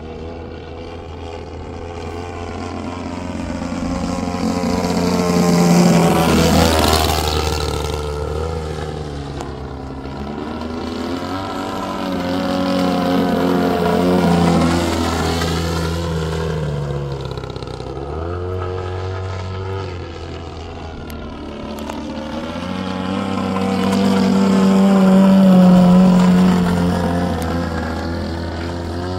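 EPHIL 123cc Pro petrol engine of a large RC aerobatic plane running in flight. It swells in loudness three times as the plane passes and turns, and its pitch drops sharply as the plane flies by, about a quarter of the way in and again past the middle.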